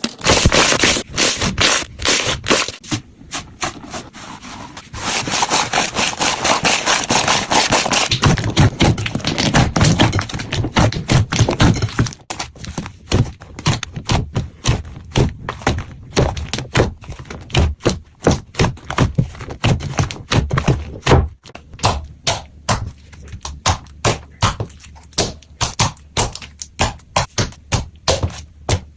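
Hands squishing and poking slime, making a dense run of irregular clicks and crackling pops.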